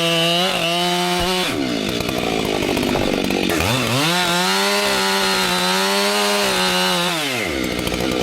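Chainsaw engine revved up to a high, steady pitch, dropping back to a low idle about a second and a half in. It is revved high again for about three and a half seconds before falling back to idle near the end.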